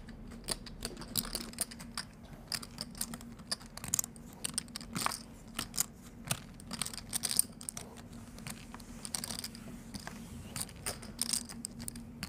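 Poker chips clicking as they are handled and riffled at the table: many light, irregular clicks, like typing, over a faint steady hum.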